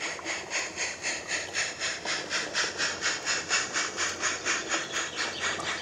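Steady rhythmic steam-locomotive chuffing, about five or six hissy beats a second, from a battery-powered 16mm-scale model narrow-gauge locomotive as it runs across a small bridge with its goods train.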